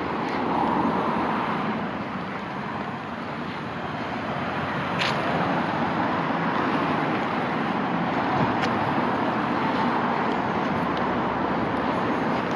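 Steady road traffic: a continuous rush of passing cars' tyres and engines, swelling a little partway through, with two brief clicks in the middle.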